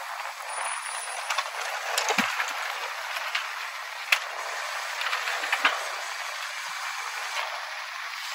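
Rear-loader garbage truck running at the curb as a steady noisy hiss, with scattered knocks and rattles of plastic trash carts being rolled up to and hooked onto its rear cart tipper. The sharpest knock comes about four seconds in.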